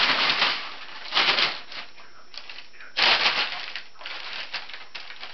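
Large sheet of crumpled paper crackling and rustling in bursts as a cat pounces and scrambles through it, about four bursts with the loudest about three seconds in.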